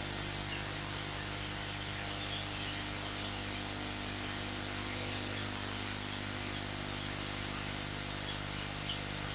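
A steady, even mechanical hum with several fixed low pitches under a constant hiss, with faint high chirps now and then.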